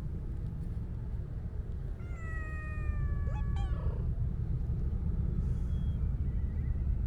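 Siamese-mix cat giving one drawn-out meow about two seconds in, lasting around two seconds and sliding slightly down in pitch, with a faint short call a little later. A steady low rumble runs underneath.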